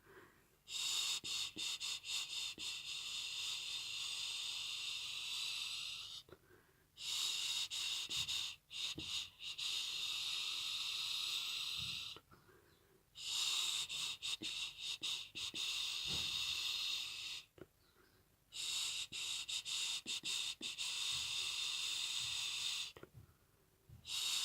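A person shushing softly to lull a baby bird to sleep: four long "shhh" hisses, each held for about four to six seconds, with a short pause for breath between them.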